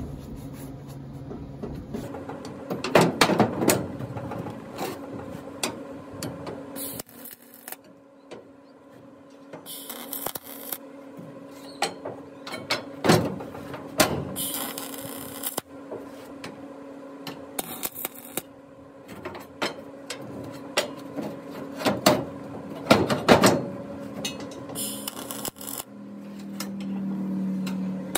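Wire-feed (MIG-type) welder laying tack welds on steel bar: several short bursts of arc crackle, each a second or two long and spaced several seconds apart, with a faint steady hum underneath.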